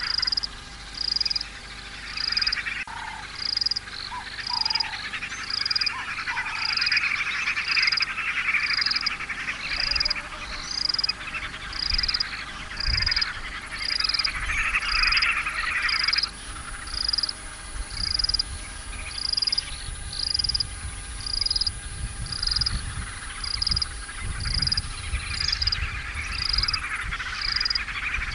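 A chorus of frogs calling, with one high call repeated evenly about every three-quarters of a second. The thicker chorus drops away for a few seconds past the middle while the repeated call goes on.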